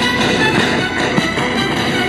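Music playing steadily, the instrumental part of a song.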